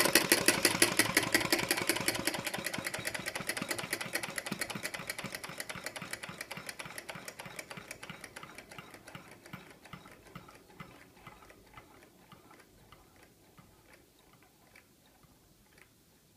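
Model flame-eater (vacuum) engine coasting to a stop with its burner flame out: a rhythmic mechanical clicking from the valve and flywheels that slows and fades away.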